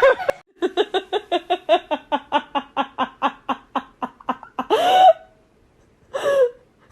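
Rapid laugh-like run of short voiced calls, about five a second for some four seconds, followed by a longer call that rises in pitch and, after a pause, one more short call.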